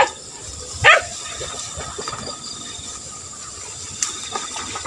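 A hunting beagle gives two sharp barks in the first second, each one sliding down in pitch, then a steady hiss with a few faint yelps near the end.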